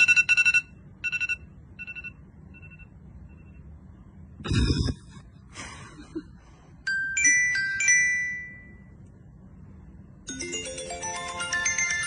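A ringtone-style electronic tune from a phone's speaker breaks off at the start, leaving a few fading chimes. A short harsh noise comes about four and a half seconds in, another near six seconds, and a few clear tones around seven to eight seconds. The tune starts up again a little after ten seconds.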